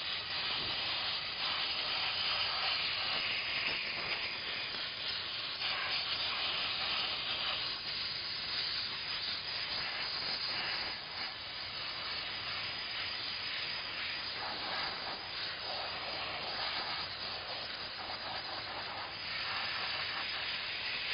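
KKC steam mop hissing steadily as it jets steam, the hiss swelling and dipping slightly throughout.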